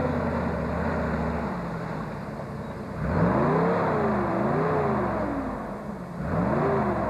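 A 4x4 off-road vehicle's engine running steadily, then revved hard about three seconds in, rising and falling twice before dropping back, and revved up once more briefly near the end.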